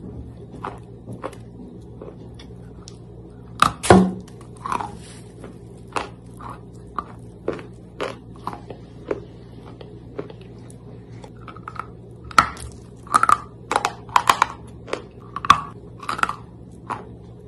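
Close-miked chewing of soaked chalk: wet crunches and clicks as the chalk breaks between the teeth, the loudest about four seconds in and a dense run of crunches near the end.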